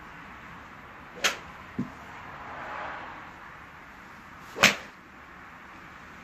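Two golf club strikes on the ball: a sharp crack about a second in and a louder one near the end, with a smaller dull thump shortly after the first.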